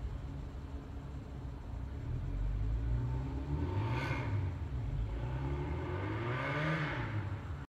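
Dresden low-floor tram standing at a stop, its on-board electrical equipment humming over a low rumble, with pitch glides wavering in the hum. There is a louder rushing swell about four seconds in and another near the end.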